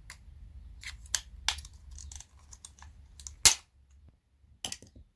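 Irregular sharp clicks and knocks of small plastic and metal parts being handled and pried during the teardown of a CD player mechanism, the loudest about three and a half seconds in and a quick cluster near the end.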